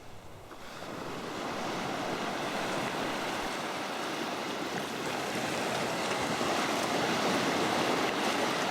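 Sea water washing and rushing steadily, like surf; it swells in over the first second or so, then holds, a little louder in the second half.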